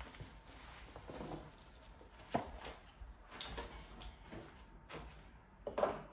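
Cardboard gift-box packaging being picked up and moved aside: a few soft knocks and rustles, the loudest near the end.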